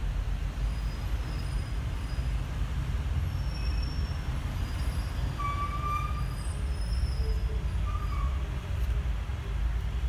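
A low, steady rumble, with a few faint brief high tones over it.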